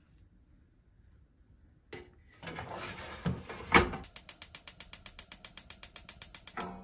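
The fish-grill drawer of a built-in gas hob slides in and shuts with a loud clack. Then the grill's igniter clicks rapidly, about nine clicks a second, for a couple of seconds as the grill burner lights.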